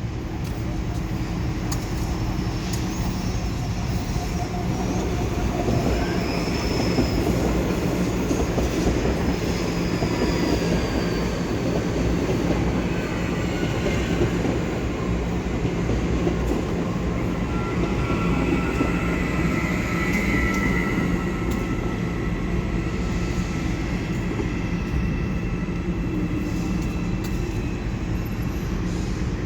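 A train running on the rails with a steady, loud rumble of wheels and thin wheel squeals. The squeals come briefly about six seconds in and again around eighteen to twenty-one seconds in.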